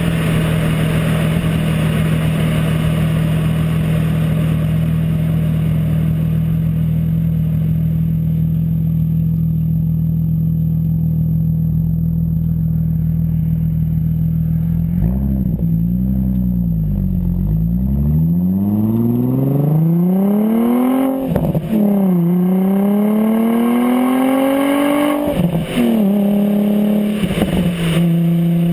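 Audi S4 with a custom Borla exhaust, heard from outside the moving car: a steady exhaust drone while cruising, then the revs dip and climb and it accelerates through the gears, with two upshifts in the last third.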